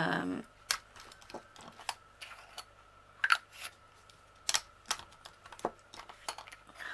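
Small clear plastic screw-top bead jars clicking and tapping against each other as they are handled and set into a storage case: a scattered series of short, sharp clicks.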